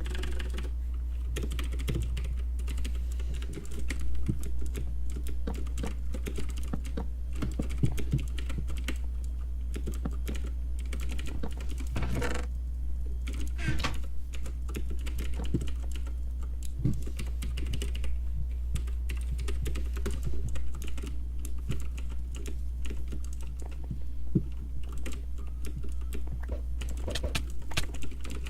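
Typing on a computer keyboard: irregular, quick keystrokes throughout, with a few denser bursts of keys about halfway through, over a steady low hum.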